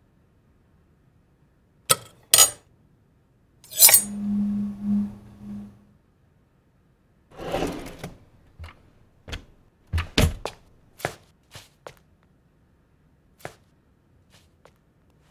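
Kitchen knives clacking in a drawer as one is lifted out, then the drawer sliding and shutting with a low thump about ten seconds in, followed by a few light clicks.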